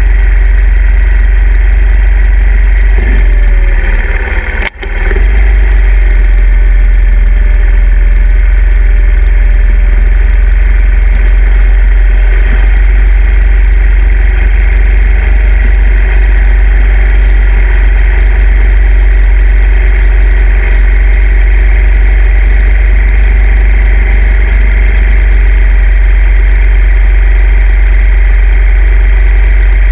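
Honda 50cc single-cylinder four-stroke dirt bike engine idling steadily, very loud and close to the microphone. About four to five seconds in the pitch wavers and the level dips sharply for a moment.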